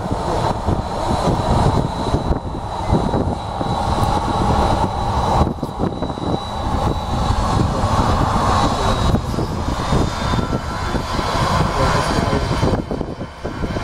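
Airbus A319 jet engines running at high power for takeoff: a steady, loud jet roar with a thin high whine over it that fades out late on.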